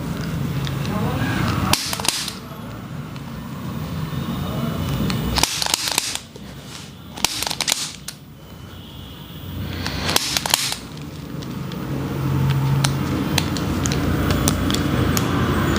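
Spinal joints cracking under a chiropractic manipulation: a series of sharp pops in small clusters, about two seconds in, between five and seven seconds in, and about ten seconds in.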